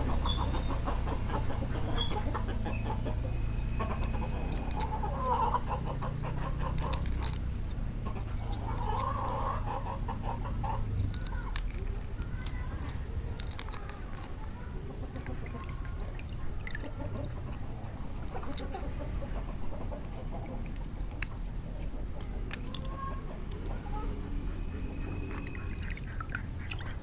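Poultry calling now and then, with short pitched calls a few seconds in and again near the middle. Scattered sharp clicks sit over a low steady hum.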